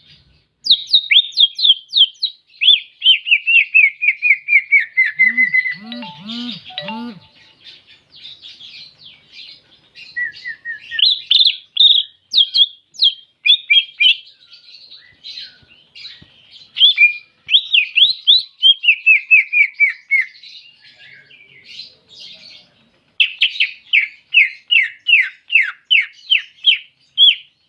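Green leafbird (cucak ijo) singing loud, clear rapid-fire phrases ('tembakan'): runs of quick, sharp whistled notes, often dropping in pitch through the run, broken by short twittering passages. About six seconds in comes a brief series of four lower, arched notes.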